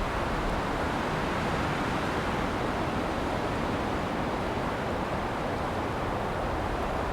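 Wind blowing steadily through trees, an even, unbroken rush with no gusts or gaps.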